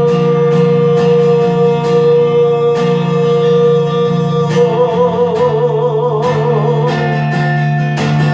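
A singer holds one long note on the last word of the line, the pitch wavering with vibrato from about halfway through until it ends near the end, over steady acoustic guitar strumming.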